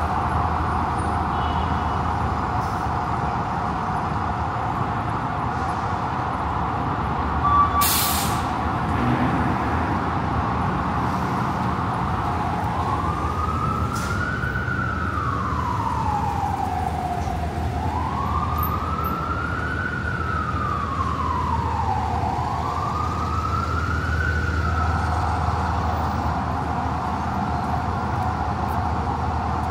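Emergency vehicle siren wailing over steady city street traffic, in three slow rising-and-falling sweeps through the middle of the stretch. A short, loud hiss comes about a quarter of the way in.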